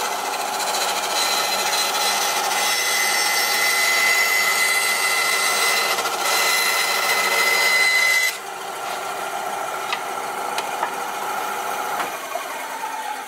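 Benchtop band saw cutting through an MDF board, a steady rasping cut with a high whine. About eight seconds in the cut finishes and the saw runs on quieter, blade spinning free.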